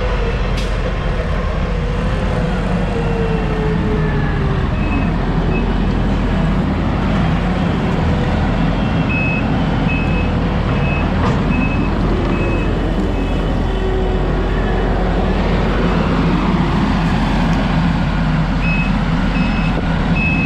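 Skid steer's diesel engine running steadily with its backup alarm beeping in several short spells, about one and a half beeps a second, as the machine reverses.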